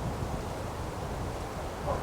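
Wind blowing steadily through a winter forest, a low rushing with wind buffeting the microphone. A short faint bird call comes near the end.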